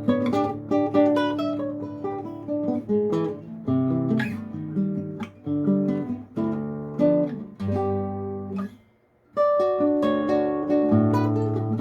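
Solo classical guitar playing: plucked melody notes and chords ringing over low bass notes, with a brief pause about nine seconds in before the playing resumes.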